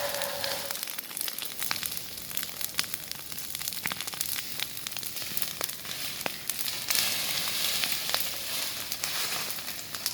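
Burning vegetation fire: a steady hiss with frequent sharp crackles and pops. The hiss swells for a couple of seconds about seven seconds in.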